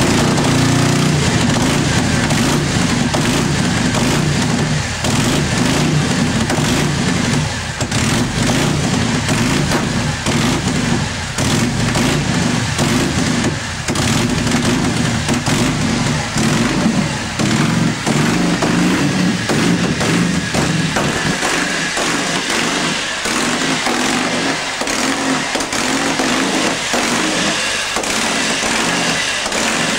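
1944 Harley-Davidson WLC's 45 cubic inch flathead V-twin running steadily at its first start. About two-thirds of the way through, the low rumble thins out.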